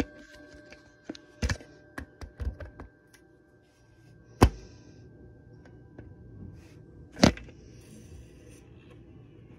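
Clicks and knocks from handling the wall clock, with two sharp, much louder knocks about four and a half and seven seconds in. The last of the clock's chime ringing fades out under the first clicks.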